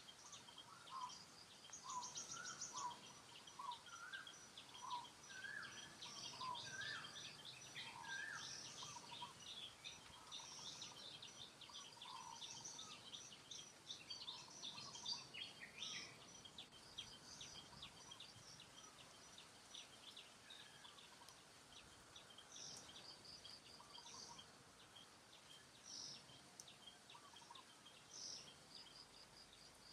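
Faint birdsong: many short bird chirps and calls over a low background hiss, busier in the first half and thinning out in the second.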